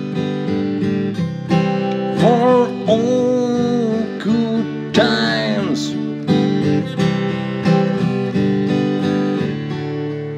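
Acoustic guitar strummed in steady chords, with a voice singing a few long, wavering notes over it.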